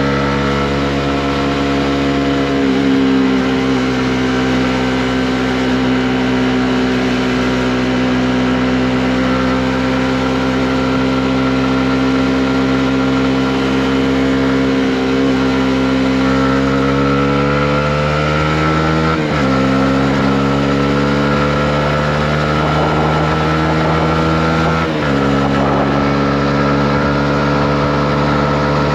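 Honda CB125R's single-cylinder four-stroke engine running at steady cruising revs, climbing in pitch as it accelerates, with two quick gear changes about two-thirds of the way in and near the end, each dropping the engine note.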